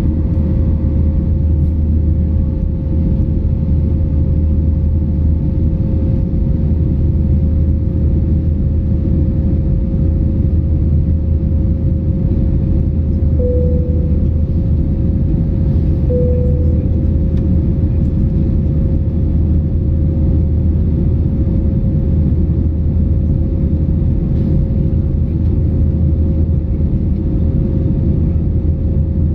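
Steady cabin noise of an Airbus A320 in flight: the loud, even drone of the engines and airflow, with a low hum and a thin steady tone in it. About halfway through come two short tones a few seconds apart.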